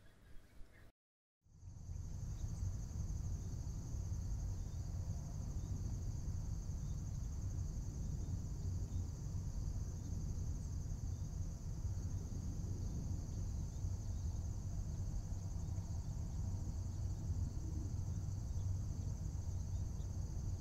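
Steady high insect chirring over a low rumble, a night-time ambience, starting after a moment of silence about a second and a half in.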